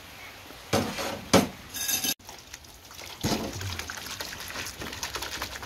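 Dishes washed by hand: a few knocks and clinks of plates in the first two seconds, then hands splashing and swishing through soapy water in a steel basin.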